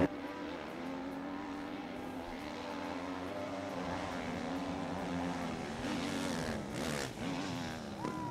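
450cc dirt bike engines racing flat out up a hill, heard from a distance. The engine pitch holds fairly steady for several seconds, then wavers up and down near the end.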